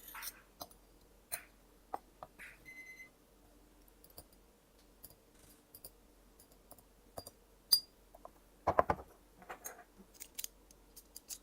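Scattered light clicks and taps of a small hand-held kitchen tool being worked on a cayenne pepper to press out its oil, with a short squeak about two and a half seconds in and a quick run of knocks near the end.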